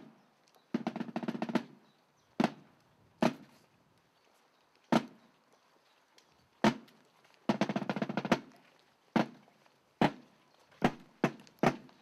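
Marching drum beating single strokes at uneven intervals, with two short rolls of rapid strokes: one about a second in and one a little past the middle.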